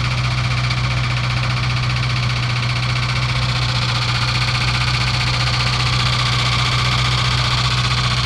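Engine bay of a 2003 Mustang Cobra with the engine running, making a loud, steady noise: a low hum with a harsh, buzzing hiss above it that grows a little stronger about halfway through. This is the horrendous noise that appears only when the AC is on and stops when it is switched off.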